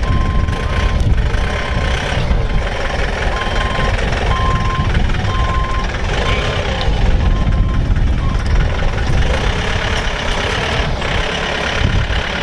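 Clark forklift's engine running steadily while a reversing alarm beeps on and off at uneven intervals, the beeps stopping about eight seconds in.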